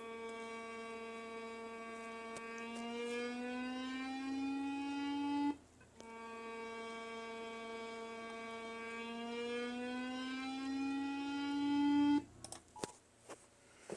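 Recording of Armenia's civil-defence warning siren: two long wails of about six seconds each, each rising slowly in pitch and getting louder before cutting off abruptly, with a short gap between them. A few faint clicks follow near the end.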